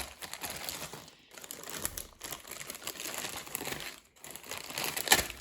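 Toy packaging crinkling and rustling as it is handled and opened, with brief pauses and a sharper crackle near the end.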